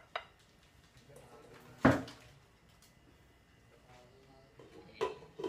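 Metal cookware being handled at a stove: a small click near the start, one sharp, loud clank with a short ring about two seconds in, and lighter clinks near the end as a lid is set onto the cooking pot.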